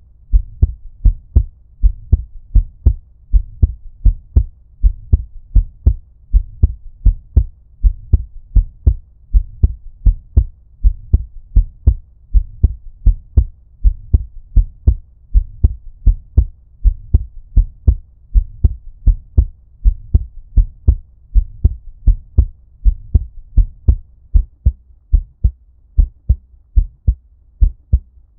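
Heartbeat at a normal resting rate, a steady lub-dub rhythm of deep, muffled thumps that sound as if heard underwater.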